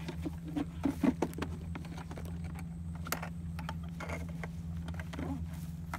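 Steady low electrical hum of a backpack electrofishing unit, with a quick run of knocks and rattles about a second in as the catch is handled at a plastic bucket, and a few lighter clicks later.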